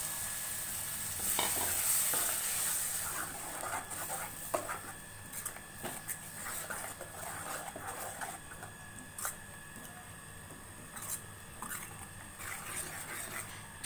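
Steel ladle stirring ground coconut masala paste into fried onions in a steel kadai, scraping and clinking irregularly against the pan. The wet paste sizzles in the hot oil, loudest in the first few seconds.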